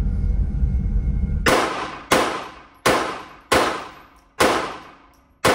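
Mauser pocket pistol fired six times in steady succession, about one shot every 0.7 seconds, each report echoing briefly off the walls of an indoor range. A low rumble comes before the first shot.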